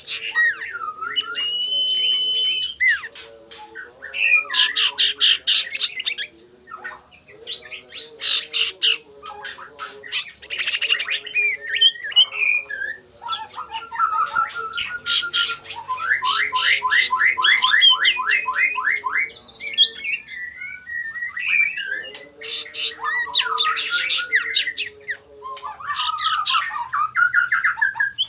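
Common iora (cipoh) calling in repeated bursts: clear whistled notes, fast rattling trills and harsh chattering, its challenging call toward a rival.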